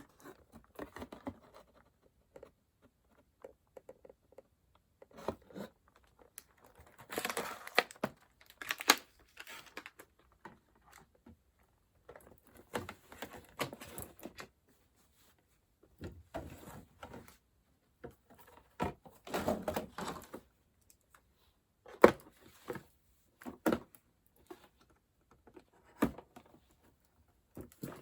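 L.O.L. Surprise toy packaging being torn open and crinkled by hand, in irregular bursts with sharp clicks and taps between quiet pauses.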